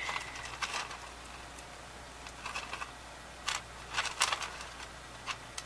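Hamsters eating and rummaging in a pile of seed mix: scattered small crunching clicks and rustles, coming in little clusters.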